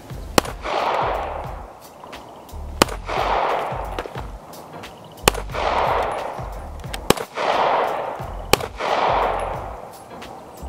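Five shots from a Kahr P380 .380 ACP pocket pistol, fired one at a time about two seconds apart, each trailed by about a second of sound.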